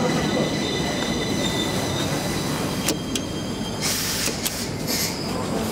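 Metro train running at the platform, a continuous rumble with a steady high whine that fades out about two seconds in. A few sharp clicks and a brief hiss come about three to five seconds in, as the elevator's call button is pressed.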